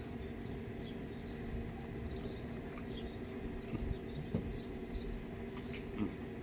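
Outdoor background: a steady low hum with faint, scattered short high chirps and a couple of soft knocks.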